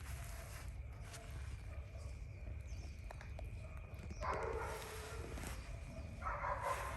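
A dog barking in two short bouts, about four and six seconds in.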